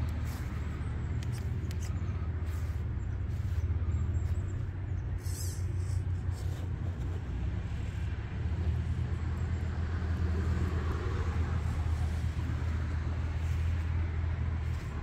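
RC scale crawler climbing over a rock, with a steady low engine-like rumble throughout and a few light clicks and knocks.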